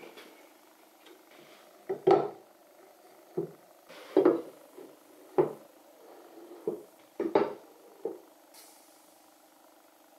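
A series of sharp clanks and knocks, metal against wood, from handling ratchet straps and hand tools on a wooden cabinet carcass: about eight separate hits roughly a second apart, over a faint steady low hum.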